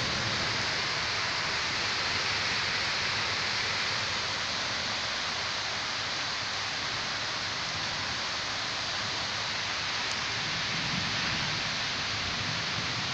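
Rain falling steadily: an even, unbroken hiss.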